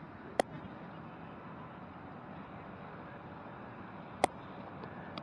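Faint steady background hiss of outdoor ambience, with two short sharp clicks, one just after the start and one near the end.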